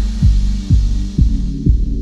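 Background electronic music: a steady kick drum about twice a second over held low synth notes.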